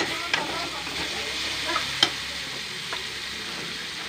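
Onion-tomato masala with freshly added cumin paste sizzling in a metal kadhai while a metal spoon stirs it, the spoon knocking and scraping against the pan a few times.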